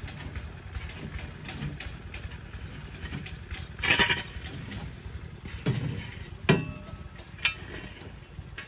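Metal shovel blade scraping and scooping hot embers and ash away from the base of an upturned tin can, with one loud scrape about four seconds in, then a few knocks and a sharp clink. A steady low rumble sits underneath throughout.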